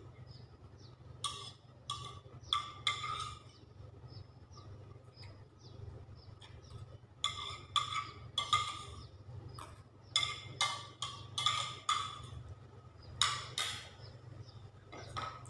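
Eating noises from a person eating soup and rice from a bowl with a spoon: about a dozen short noises in little groups of two or three, over a low steady hum.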